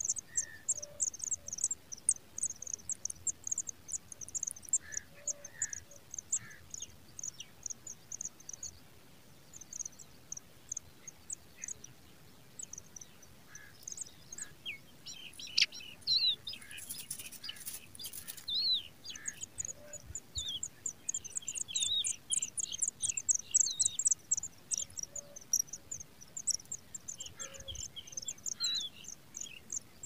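Pipit nestlings begging in a ground nest: a quick run of thin, very high chirps, with lower down-slurred calls joining in from about halfway.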